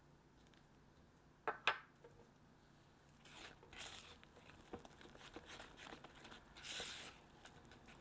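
Two sharp knocks about a second and a half in, then a spatula scraping and stirring soft creamed butter-and-sugar cookie dough around a ceramic mixing bowl, working in vanilla extract.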